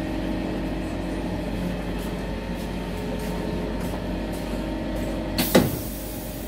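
Cabin of an SMRT C651 metro train slowing into a station: a steady hum of the traction equipment and running gear, then, about five and a half seconds in, a sudden loud hiss with a short falling tone as the train comes to a halt.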